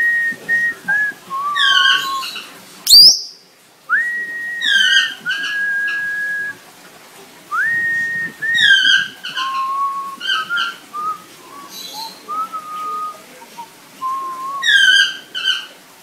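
A whistled tune of held notes and short pitch glides, traded back and forth with raspy parrot calls. One loud, shrill parrot screech comes about three seconds in.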